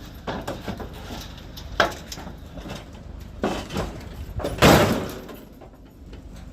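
A sharp knock about two seconds in, a clatter, then a loud slam of a vehicle door or hatch being shut about four and a half seconds in, over a low steady hum.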